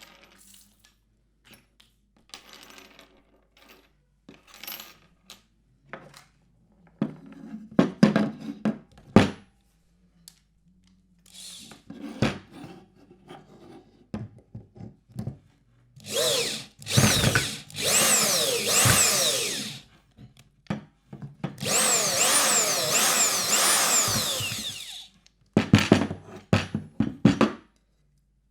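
Electric screwdriver working plywood: scattered clicks and knocks, then the motor whirs in two runs of a few seconds each, its pitch swinging up and down repeatedly, followed by more clicks.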